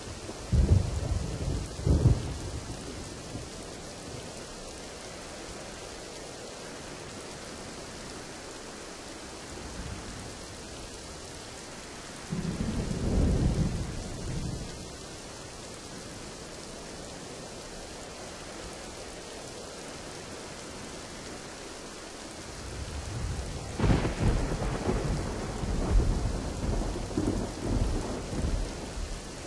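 Steady heavy rain with rolls of thunder: a sharp crack and rumble right at the start, another rumble about halfway through, and a longer rolling peal near the end.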